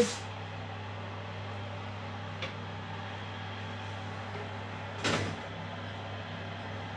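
Bain-marie tin of hot water being slid onto a wire oven shelf: a faint click about two and a half seconds in and a short scrape about five seconds in, over a steady low hum.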